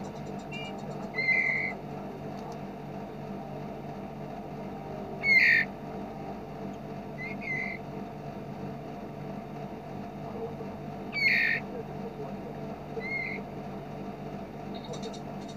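Small songbirds calling in a bird-training recording: short, loud, sharp chirps every few seconds, with a fast rattling trill near the end, over a steady low hum.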